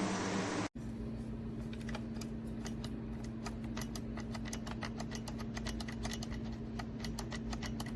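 Typing on a computer keyboard: rapid clicking keystrokes over a steady low hum. A brief steady hiss cuts off suddenly near the start.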